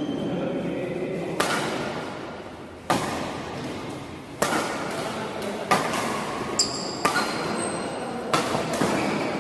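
Badminton rally in men's doubles: rackets striking the shuttlecock about six times, one sharp hit every second and a half or so, with brief high squeaks of shoes on the court about two-thirds of the way through.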